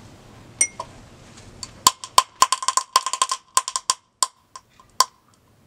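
Sharp crackling pops from a glass beaker as sulfuric acid drips into concentrated potassium chlorate solution, spattering acid out of the beaker, like water dripped into hot oil. The crackling comes from chloric acid breaking down into chlorine dioxide gas. A few clicks come first, then dense popping from about two to four seconds in, thinning out about a second later.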